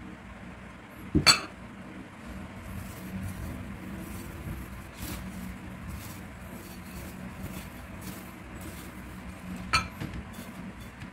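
Two sharp clinks of a spoon and kitchenware, about a second in and again near the end, over a steady low hum. Faint light rustling and ticking of breadcrumbs being pressed around an egg-coated eggplant roll in between.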